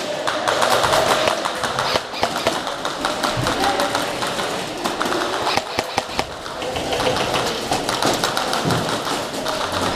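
Airsoft guns firing in quick runs of clicking shots, irregular and overlapping, with scattered taps and thuds over a steady background hum.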